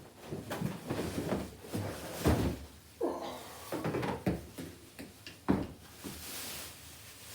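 Plastic body of a compact portable washing machine bumping and knocking as it is handled and lifted by its side handles: several separate thumps and clunks with rustling in between.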